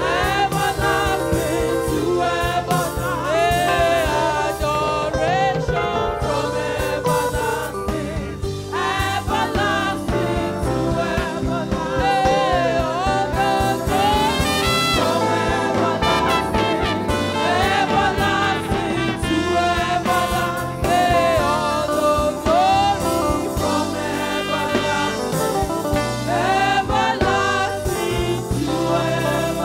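A gospel praise song: a woman lead singer singing into a microphone, joined by backing singers, over steady instrumental accompaniment.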